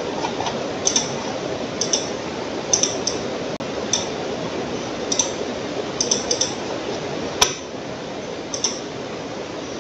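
Computer mouse clicking at irregular intervals of about a second, with one sharper click a little after seven seconds, over a steady background hiss.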